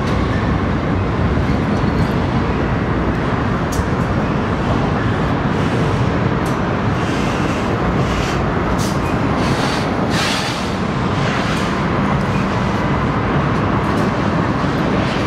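Freight train of container cars rolling across a steel truss railroad bridge: a steady, loud rumble and rattle of wheels on rail, with a few brief higher, scraping flares in the middle.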